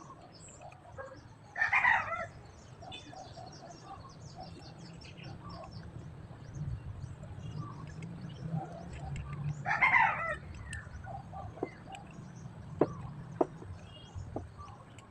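Rooster crowing twice, about eight seconds apart, with chickens clucking in between. A few sharp knocks come near the end over a steady low hum.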